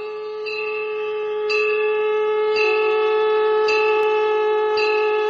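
Devotional intro music: one steady held drone note, with a bell struck about once a second and left ringing over it.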